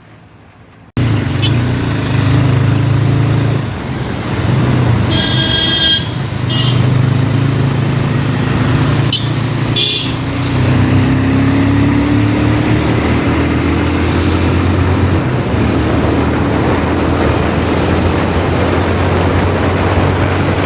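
TVS Apache RTR motorcycle being ridden in traffic: the single-cylinder engine runs steadily under wind and road noise, with a vehicle horn sounding briefly about five seconds in and again near ten seconds, and the engine rising in pitch as it speeds up shortly after.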